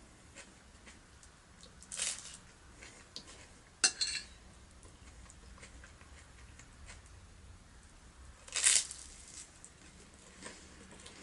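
Cutlery clinking and scraping against a plate, three short bursts about two, four and eight and a half seconds in, the middle one a sharp clink.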